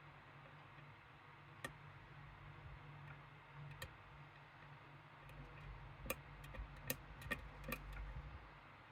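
Small sharp metallic clicks from working a Medeco M3 lock: a couple of single clicks, then a quick run of several about six to eight seconds in, over a faint low rumble of handling.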